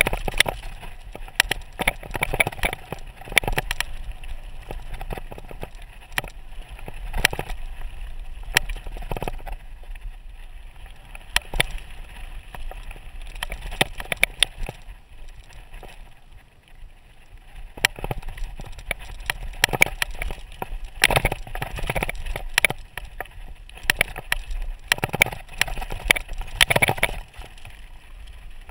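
Mountain bike rattling and clattering as its tyres crunch over loose rock and gravel on a fast descent, with a steady low rumble underneath. The knocks ease off briefly about halfway through, then pick up again.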